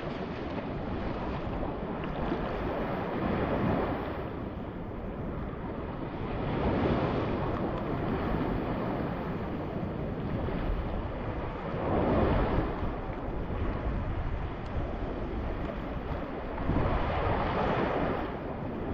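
Small sea waves washing and sloshing in shallow water close by, with wind buffeting the microphone; the wash swells louder four times, about every four to five seconds.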